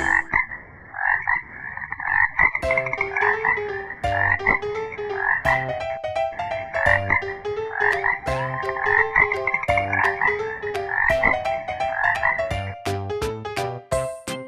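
A frog croaking in quick repeated runs of calls, over a light backing track with a steady beat.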